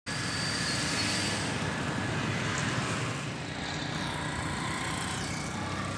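Steady road-traffic noise, a continuous rumble of vehicles passing.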